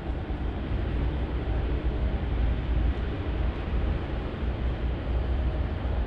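Steady outdoor background noise: a fluctuating low rumble with a hiss above it, no distinct events.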